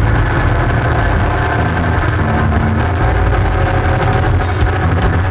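ATV engine running steadily under way, an even low drone, heard from the machine itself. A brief scratchy rattle a little past four seconds.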